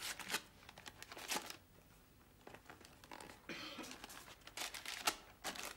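A paper envelope being torn open and the letter inside unfolded: several short, irregular rustles and crinkles of paper.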